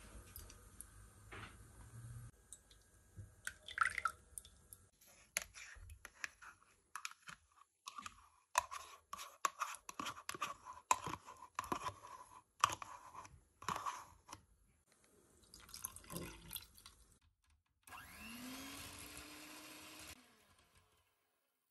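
Electric hand mixer switching on and beating a batter of egg yolks and yogurt in a glass bowl, its whir rising in pitch as it spins up, for about two seconds near the end. Before that come many light clinks and scrapes of ingredients and utensils against the glass bowl.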